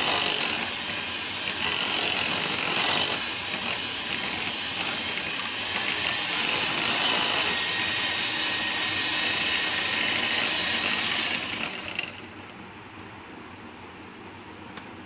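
Electric hand mixer running steadily with a faint whine, its beaters whipping butter and icing sugar into buttercream frosting. It is switched off with a few seconds to go, leaving quieter handling.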